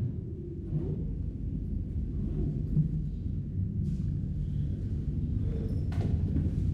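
Low, dark rumbling drone of a film score, slowly swelling in loudness, with a sharp click near the end.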